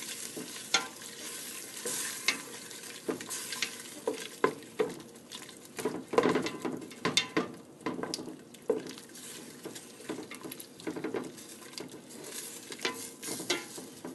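A spatula stirring a pot of onions, broth and curry nuggets, with irregular scrapes and knocks against the pot over a steady sizzling simmer; the curry is being mixed in to dissolve.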